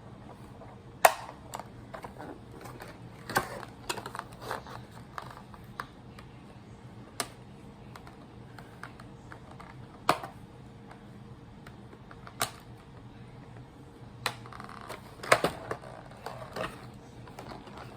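Irregular clicks and taps of a doll being handled and freed from its plastic and cardboard packaging, about ten sharp knocks at uneven intervals, with a quick cluster a little past the middle.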